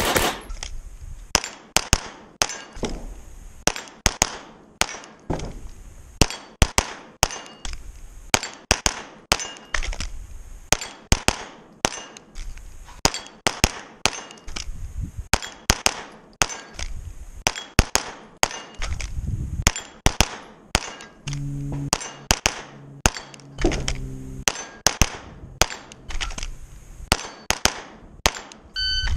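Glock 9mm pistol fired in strings of shots, about one to two shots a second with short pauses between strings.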